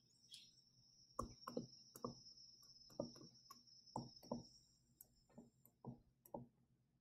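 Faint light taps of a stylus pen on a tablet screen during handwriting, about ten short clicks at uneven spacing.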